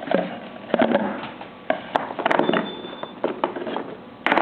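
Rustling and light clicks of a leather belt and metal buckle being handled out of their packaging, irregular, with a louder burst of handling noise near the end.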